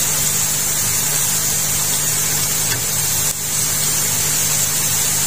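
Sliced onions sizzling steadily in hot oil in an aluminium pot, a high hiss over a steady low hum.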